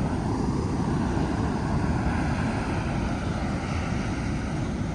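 Steady wind rumble on the microphone mixed with the wash of storm surf.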